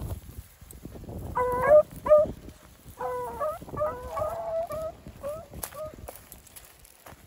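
Beagles yipping in short, high calls that rise in pitch: a quick pair about a second in, then a run of calls for about three seconds. This is the cry of rabbit hounds working a scent. Dry grass rustles under them at the start.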